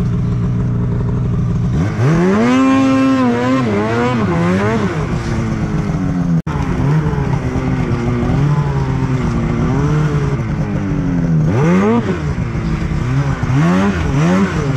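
Snowmobile engine running under throttle in deep powder, revving up sharply about two seconds in, then rising and falling in pitch as the throttle is worked, with more quick rev surges near the end.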